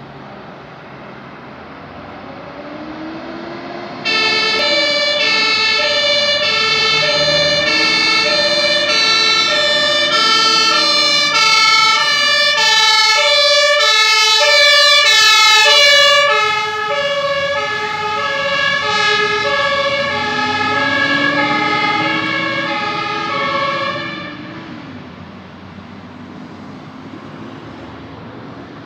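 German fire engine (HLF 10) passing with its two-tone siren switched on, alternating high and low tones. The siren starts abruptly about four seconds in over the truck's engine and tyre noise, is loudest mid-pass and drops slightly in pitch as the truck goes by. It fades out near the end, leaving road noise.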